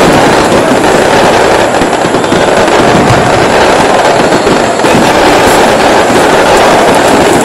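Loud, steady roar of a packed football crowd in the stands, so loud that the phone microphone is overloaded.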